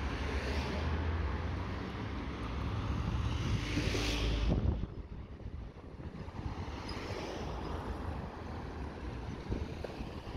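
Road noise from travelling in a vehicle, with wind on the microphone: a steady low rumble that swells to a louder rush about four seconds in, then drops to a quieter, even hiss.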